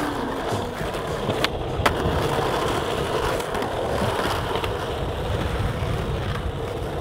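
Skateboard wheels rolling steadily over rough street asphalt, with two sharp clicks close together about a second and a half in.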